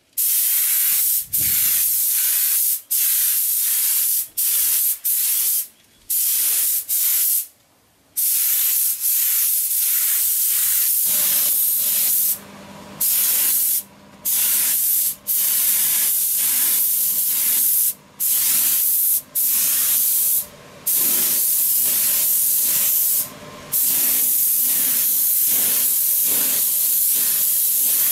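Air spray gun with a suction-feed cup hissing as it sprays acrylic paint, in long bursts broken by about a dozen brief gaps where the trigger is let off. A steady low hum joins about eleven seconds in.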